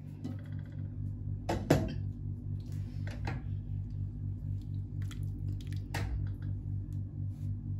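Glass pot lid lifted off a stainless steel cooking pot and the pot handled: a sharp clink about one and a half seconds in, then lighter knocks near three seconds and around six seconds. A low, steady, pulsing hum runs underneath.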